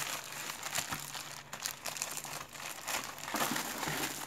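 Plastic shipping bag crinkling and rustling in a continuous run of sharp crackles as it is handled and rummaged through.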